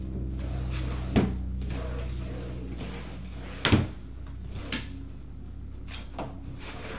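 Knocks and bumps of drawers and cupboard doors being opened and shut in a search for drawing supplies: one knock about a second in, the loudest in the middle, then two lighter ones, over a steady low hum.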